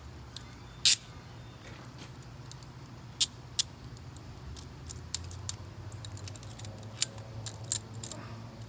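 Metal training handcuffs clinking and clicking as they are handled and worked into a belt holster pouch: a string of sharp, separate metallic clicks, the loudest about a second in.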